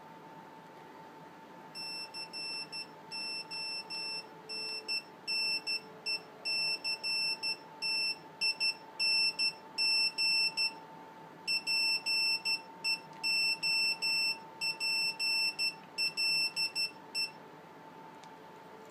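Nokia 5510 mobile phone's ringer playing a monophonic ringtone: a long run of short beeps, all at one high pitch, with a break about eleven seconds in. The beeps grow louder over the first several seconds.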